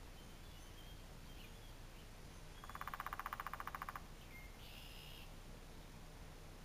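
Woodpecker drumming: one rapid roll of evenly spaced strikes, lasting a little over a second, a few seconds in. A brief bird call follows.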